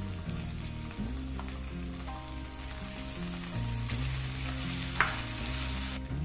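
Crushed garlic and ginger frying in hot coconut oil in a non-stick pan: a steady sizzle, with one sharp knock about five seconds in.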